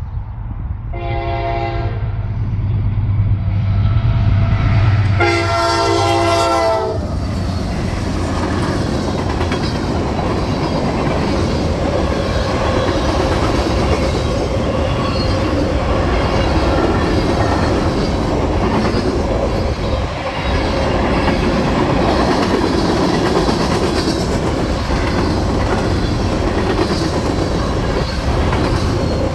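Diesel freight train passing on the main line: over the locomotives' low engine rumble the horn sounds a short blast about a second in and a longer blast around five seconds in, then the freight cars roll by with a steady rumble and wheel clatter.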